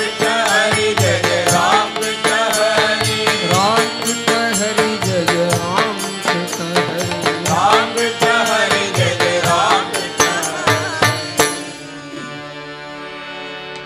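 Devotional namasankeerthanam music: a gliding melody over a steady percussion beat. About eleven and a half seconds in the beat stops and a quieter sustained tone carries on.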